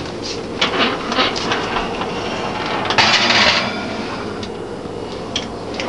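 Metal muffin pan being slid onto an oven's wire rack. Light clicks and clatter of metal on metal, with a loud scrape of the pan across the rack about three seconds in.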